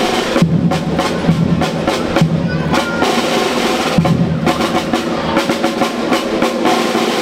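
School marching band drums playing a marching cadence: rapid snare-drum strikes and rolls over a bass drum beat.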